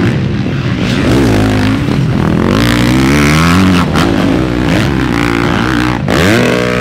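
Motocross bike engines revving on a dirt track, the pitch climbing and dropping again and again as throttles open and close through the jumps, with a sharp climb near the end.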